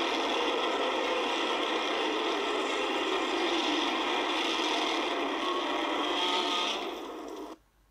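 Godzilla film sound effect: a steady, harsh rasping rush of noise that holds for several seconds, drops off about seven seconds in and cuts off sharply.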